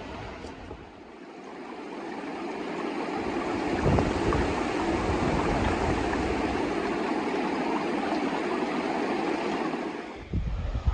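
Rushing river water: a steady noise that swells over the first few seconds, holds, and drops away near the end.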